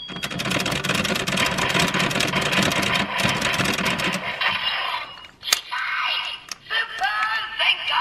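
Bandai DX Geartlinger toy blaster playing electronic sound effects through its small speaker. First comes about four seconds of rapid clicking mixed with a synthesized tone, then a sharp click and a short synthesized voice-and-music call.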